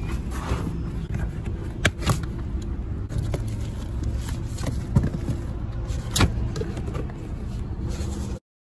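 Car engine idling, heard inside the cabin, with a few sharp clicks and knocks as things are handled. The sound cuts out abruptly near the end.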